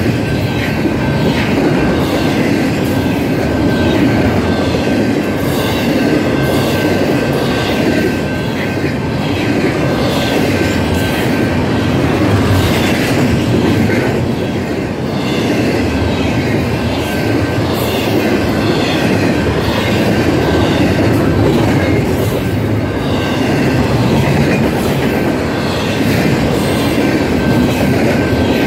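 Double-stack intermodal freight train's container well cars rolling past at close range: a steady loud rumble with wheels clicking over the rail joints, and a thin steady high tone running through it.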